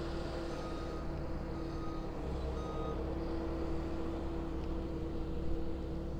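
Distant heavy construction machinery running steadily, with a backup alarm beeping faintly at intervals during the first few seconds.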